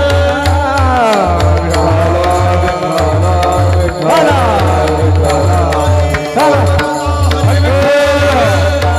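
Devotional Varkari kirtan singing: a voice sings long notes that slide up and down in pitch over a steady, repeating low drum beat.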